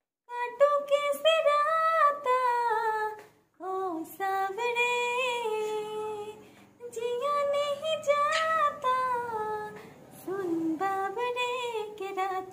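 A woman singing a melody solo, without accompaniment, in phrases with short pauses for breath.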